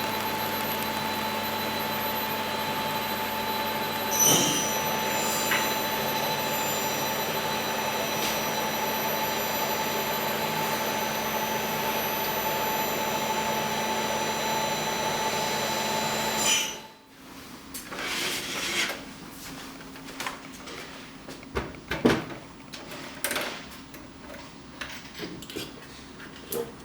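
A machine runs with a steady whir and a few constant high whines, then cuts off suddenly about seventeen seconds in. After that come scattered clicks and knocks of things being handled.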